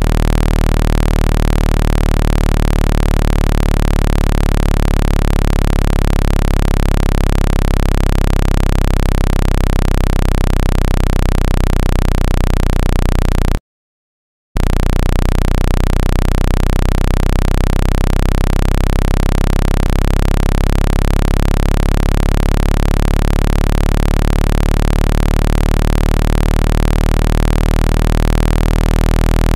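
Loud electronic speaker-cleaning tone, meant to shake water and dust out of a phone speaker: a steady low buzzing tone with many overtones over a hiss. It cuts out completely for about a second midway, then resumes.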